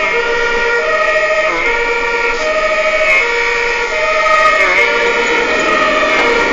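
German fire engine two-tone siren (Martinshorn) sounding continuously, alternating between a low and a high pitch, heard from inside the cab of a moving fire engine.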